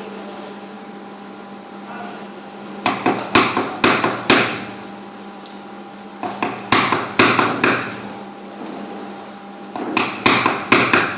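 Hammer blows on metal in three bursts of several sharp, ringing strikes each, with pauses between the bursts.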